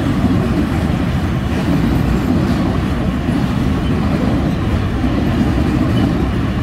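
Freight train of container wagons rolling past: a steady, deep rumble of steel wheels on the rails.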